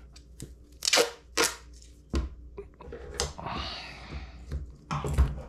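Adhesive tape being pulled off its roll and cut with scissors: a series of sharp rips and clicks, a longer rasping pull a little past the middle, and more clicks near the end.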